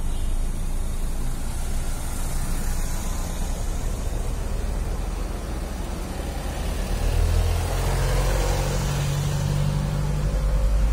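Cars driving slowly past close by, one after another: low engine hum and tyre noise that swells as each car goes by, loudest about two thirds of the way through.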